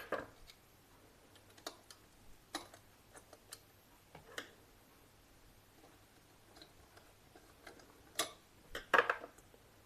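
Scattered light clicks and taps of hand wiring work as a black wire is fitted to the neutral terminal of a 16 A power socket, with a slightly louder pair of clicks near the end.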